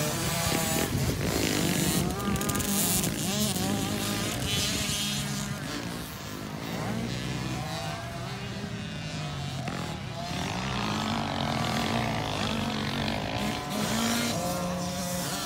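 Several small youth motocross dirt bike engines running at once on the track, their pitch rising and falling as the riders open and close the throttle, overlapping one another.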